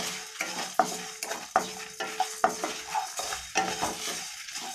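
Wooden spatula stirring whole spices and lentils dry-roasting in a nonstick pan: the seeds and dried red chillies scrape and rattle across the pan with each stroke, about two strokes a second.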